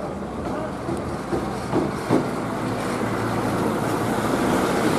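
Road traffic with a heavy truck's engine and tyres passing close, growing louder toward the end. A few short thumps come between one and two seconds in.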